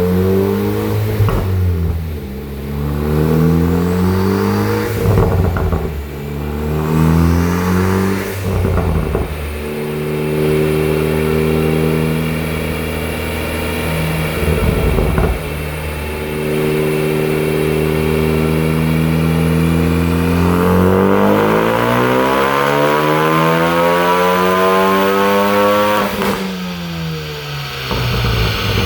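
Turbocharged Ford Focus ST with a Milltek exhaust, loud, revving up and down and holding revs. Several sharp crackles and pops come as the revs fall, and a long climb near the end drops off suddenly.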